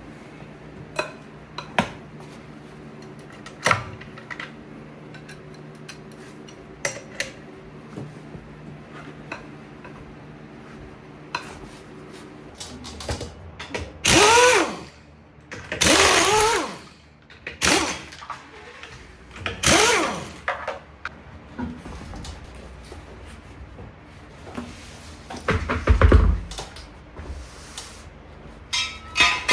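Hand-tool work on a pickup's front wheel: scattered clicks and knocks of a breaker bar and socket on the lug nuts, then several loud creaking strokes about halfway through and a heavy low thump near the end.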